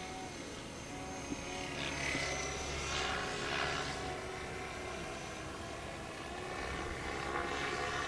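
Radio-controlled model helicopter flying overhead: a whine from its motor and rotor that wavers up and down in pitch, with a louder rushing swoosh of the rotor blades about two seconds in and again near the end.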